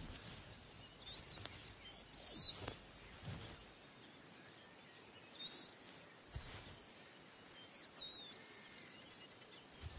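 Quiet grassland ambience with scattered faint bird chirps and a few brief soft knocks and rustles, the loudest about two and a half seconds in.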